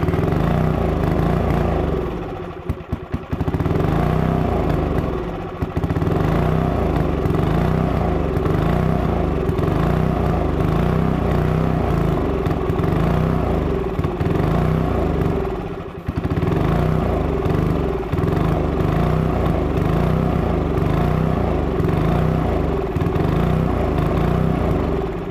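Briggs & Stratton 4 HP single-cylinder engine on a gas air compressor running while fed with spray from an aerosol can into its intake. Its speed surges up and down, and it falters about two seconds in, again around five seconds, and once more about sixteen seconds in before picking back up.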